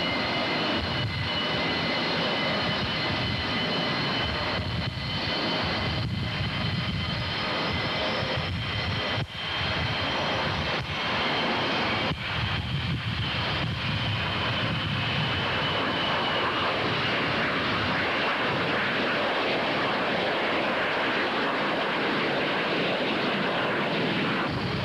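Low fly-by of Douglas EA-3B Skywarrior jets, their twin Pratt & Whitney J57 turbojets giving a steady loud jet roar with high whining tones, which fade out about two-thirds of the way through as the noise carries on.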